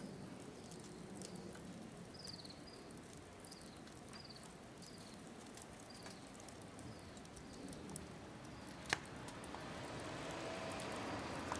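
Firewood burning in a pyramid fire stand with a secondary-combustion afterburner: scattered crackles over a low steady burn, with one sharp pop about nine seconds in.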